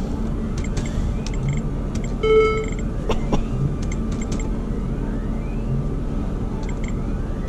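Bonus Poker video poker machine's electronic dealing sounds: a short chime of tones about two seconds in and quick ticks as cards are dealt. Underneath is a steady background hum of casino noise.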